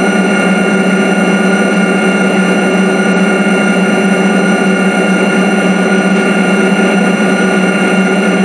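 HO-scale model freight train of ore hopper cars rolling past on the track, a steady hum over a rumbling noise.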